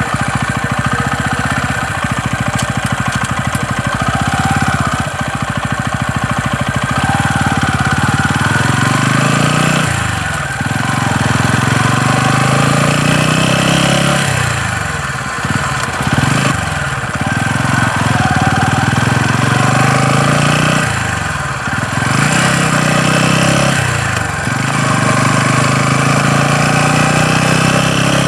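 TVS Ronin 225cc single-cylinder motorcycle engine running steadily, then revving up and dropping back several times. The engine carries a knocking noise that the owner says remains after the engine was opened and repaired, and that is louder when accelerating.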